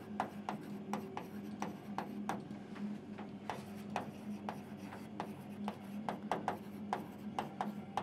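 Handwriting on an interactive touchscreen board: a quick, irregular run of small taps and scratches as the words are written, over a faint steady hum.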